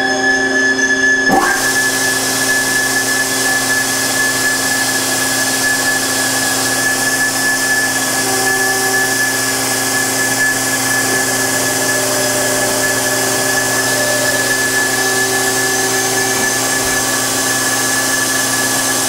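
Amada CM-100-AN CNC cut-off saw cutting square metal bar with its 14-inch carbide-tipped circular blade: a steady machine whine with several held tones, and a hiss that sets in about a second in and holds as the blade works through the cut.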